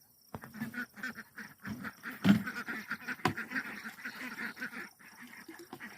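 A flock of domestic ducks quacking in a rapid, continuous chatter, with a loud thump about two seconds in and a sharp click a second later.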